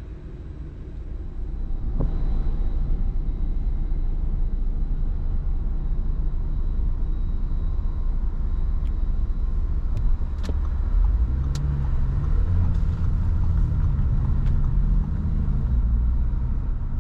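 A car driving, with a steady low rumble of engine and road noise that builds over the first two seconds. A few sharp clicks fall around the middle.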